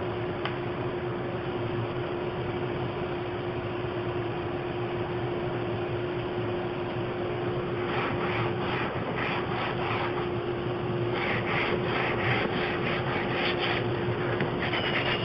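Electric detail sander running with a steady hum, its triangular pad rubbing on bare wood. About halfway through, and again a little later, it rasps in quick back-and-forth strokes, about three a second, as it is worked along the door's mouldings.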